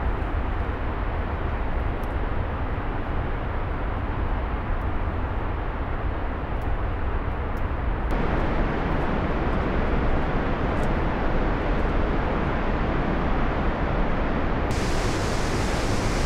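Loud, steady rush of river rapids: the Jinsha River churning through Tiger Leaping Gorge. Its tone shifts abruptly twice, about eight and about fifteen seconds in, fuller and deeper after the first change and hissier after the second.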